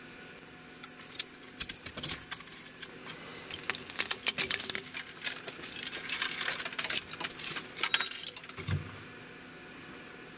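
Small printed PLA support pieces clicking and rattling as they are picked off the 3D printer's metal bed and handled, with a louder jingling clatter near the end, over the printer's cooling fans running steadily.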